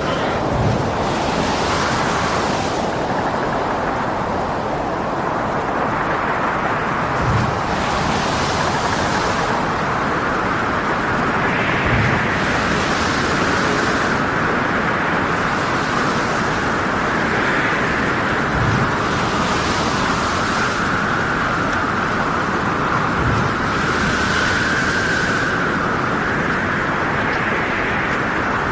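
Storm at sea: a continuous roar of wind and heavy waves, with a wavering wind whistle. Surges of hissing spray and low thuds come about every five seconds.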